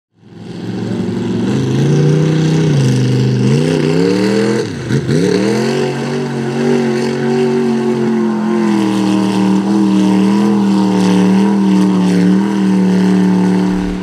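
Big-block Ford V8 in an OBS pickup running hard under load through a mud pit, with the revs rising and wavering. About five seconds in, the revs drop sharply and climb straight back, then hold high and fairly steady.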